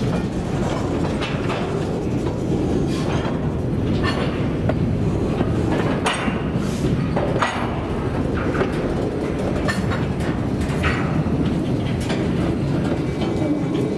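Covered hopper cars rolling past on the rails: a steady rumble of steel wheels on track, broken by irregular clicks and clanks from wheels and couplers.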